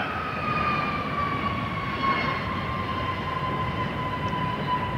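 Jet engines of a B-52 Stratofortress passing low with its undercarriage down: a broad rumble under a high whine that slowly falls in pitch as the bomber goes by.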